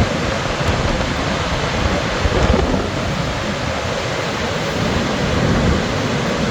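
Augrabies Falls on the Orange River, a steady rush of heavily falling water with no let-up.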